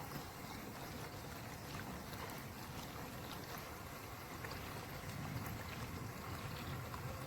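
Pool water gurgling and lapping steadily, with scattered faint ticks.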